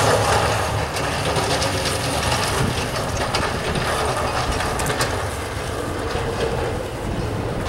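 City snowplow dump truck driving past with its blade down, a steady engine-and-scraping noise with a few light clanks.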